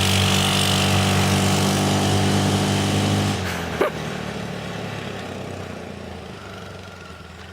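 Quad ATV engine with a custom exhaust running at steady, held revs. About three seconds in, the note drops and then fades as the quad moves away, with a brief sharp sound just after the drop.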